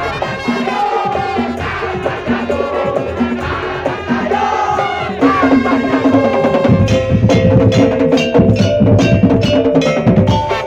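Madurese ul-daul music: a held wind melody over wood-block and drum percussion, with the percussion growing louder and busier from about two-thirds of the way in.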